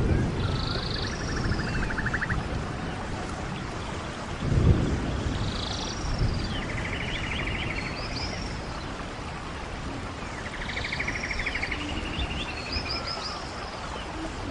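A songbird sings the same short phrase three times, each a high chirp and sweep ending in a buzzy trill, over a steady low rumble. A dull thump comes near the start and another about four and a half seconds in.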